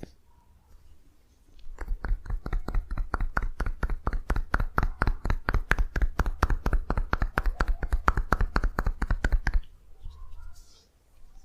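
A fast, even run of hand-tapping massage strokes, about six a second, starting about two seconds in and stopping abruptly near the end.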